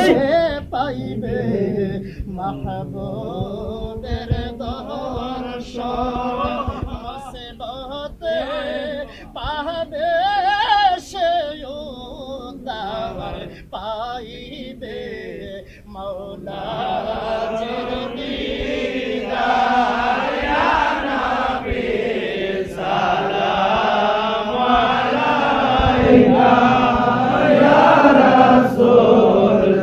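Men's voices chanting an Islamic devotional chant together, with sparse phrases and pauses in the first half, then fuller and louder from a little past halfway.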